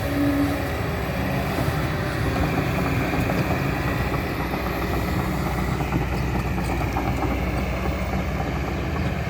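Kobelco SK200-10 excavator's diesel engine running steadily, a constant low-pitched drone.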